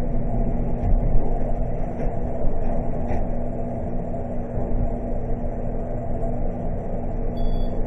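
Elevator running: a steady low rumble with a constant low hum throughout.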